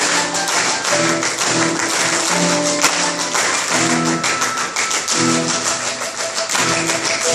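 Mixed choir singing short rhythmic phrases over fast, continuous hand clapping in a driving rhythm.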